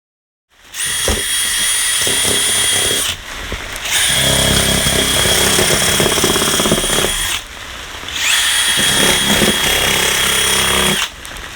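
Handheld power tool, drill-like, opening a box. Its motor whines steadily in three runs of about three seconds each, with short pauses between, and starts again at the very end.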